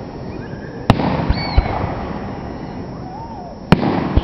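Aerial firework shells bursting: two sharp booms, one about a second in and a louder one near the end, with a continuous low rumble of other bursts and echo between them.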